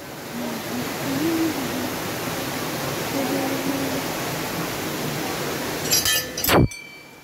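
A steady rushing noise with faint voices in it. Near the end a hanging brass temple bell is struck and rings on briefly; it is the loudest sound.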